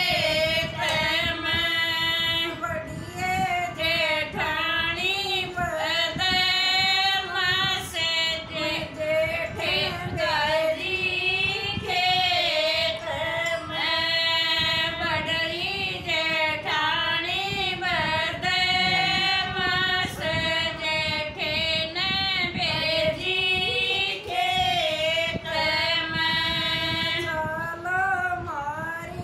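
Three women singing a Haryanvi folk song together without instruments, in long held notes that waver.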